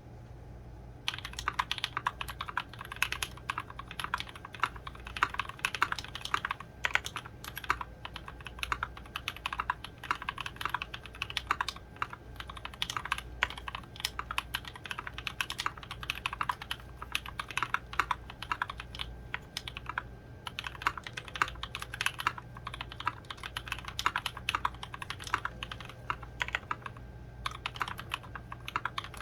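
Typing test on a KBDfans Endless-80 mechanical keyboard with NovelKeys Cream linear switches, an aluminium plate and doubleshot ABS keycaps. It is a steady run of keystroke clicks that begins about a second in and pauses briefly near the end.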